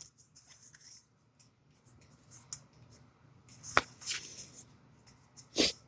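Pokémon trading cards and packs being handled by hand: faint rustling and light ticks, a sharp click a little past halfway and a louder short rustle near the end.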